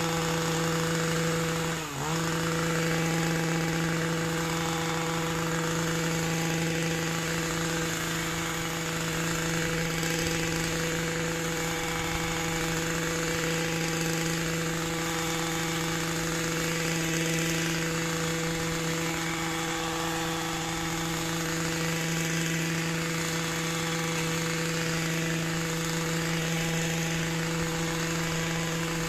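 Small petrol engine of a handheld garden power tool running at steady high revs; about two seconds in the revs dip briefly and pick back up.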